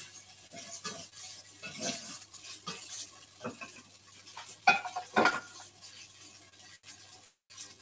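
Tofu cubes frying in a hot pan, stirred and scraped with a spoon as they stick to the pan, with a light sizzle; two sharper clanks of the spoon against the pan about five seconds in.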